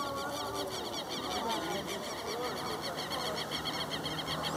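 Insects chirping in a fast, even, high-pitched pulse train of about eight chirps a second, with bird calls gliding up and down beneath it.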